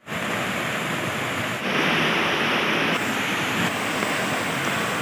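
Swollen, flooding river rushing and churning in brown rapids around a structure's pillars: a steady, dense rush of water.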